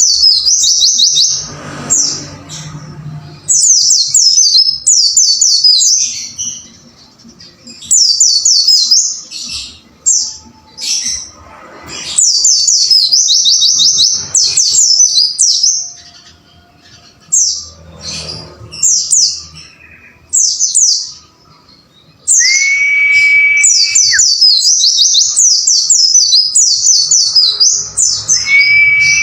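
White-eye (pleci) singing in fast bursts of high, rapidly repeated chirps, in phrases of one to two seconds with short pauses between them. Twice near the end a steady whistled note, held about a second and a half and dropping at its close, sounds under the chirping.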